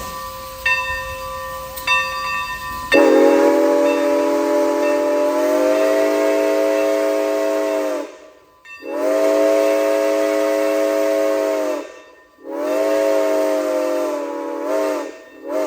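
Santa Fe 2926 4-8-4 steam locomotive's chime whistle sounding three long blasts and starting a short fourth, the first blast the longest. Before them, over a steady hiss, the locomotive's bell rings twice.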